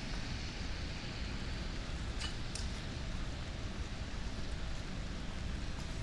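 Steady hiss of rain on wet city pavement over a low rumble of distant road traffic. Two faint ticks come about two seconds in.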